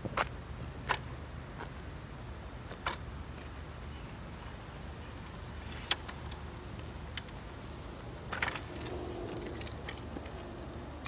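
Razor A5 Air kick scooter being unfolded: a series of sharp metal clicks and snaps as the handlebars and folding stem are locked into place, the loudest snap about six seconds in. Near the end the scooter's air-filled wheels start rolling on asphalt with a steady hum.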